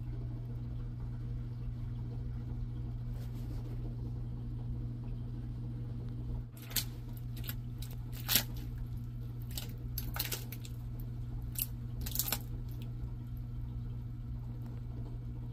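Dwarf caiman crunching a fish head in its jaws: a run of sharp crunches and cracks, starting about halfway through and lasting about six seconds, over a steady low hum.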